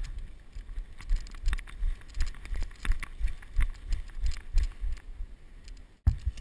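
Running footsteps on a concrete floor, about two to three heavy thuds a second, with gear and the body-worn GoPro camera clicking and rattling as they jostle. The sound cuts out for an instant near the end.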